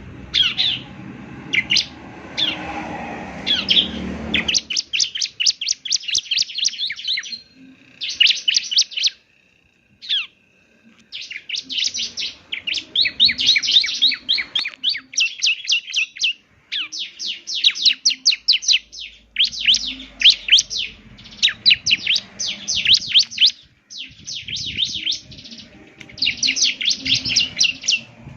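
Bar-winged prinia (ciblek) singing: rapid trills of sharp, high chirps in bursts of one to two seconds, separated by short pauses. A low rumble sits under the song for the first four seconds or so.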